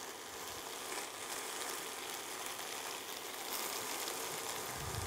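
Chicken and vegetables frying in a wok, a quiet steady sizzle.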